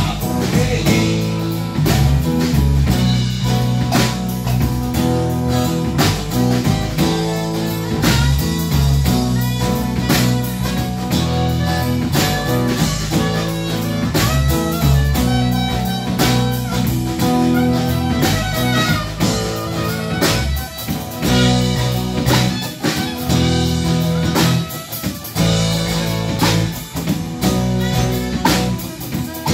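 Live band playing an instrumental groove: bass guitar, strummed acoustic guitar, drum kit and percussion, with a saxophone playing over them.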